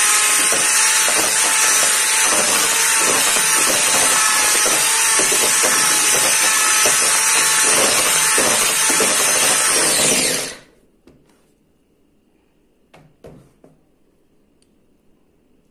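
Electric hand mixer beating thick cake batter, a steady motor whine with the beaters churning through the mix. It switches off suddenly about two-thirds of the way through, leaving only a few faint clicks.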